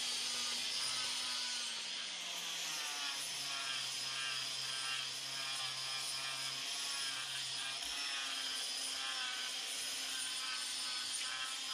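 Power sander running against a log wall, its low hum dropping in pitch about two seconds in and its sound wavering as it works over the wood.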